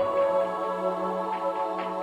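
Background music: soft, sustained new-age style keyboard chords, with a new chord entering at the start.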